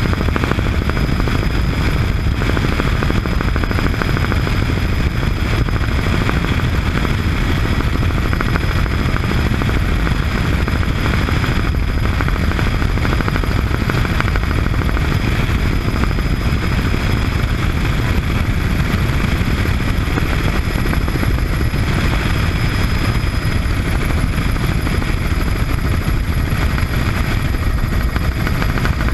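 Bell 206B3 JetRanger helicopter in cruise flight, heard from the rear seat: steady rotor and turbine noise, a heavy low rumble with a thin high whine on top.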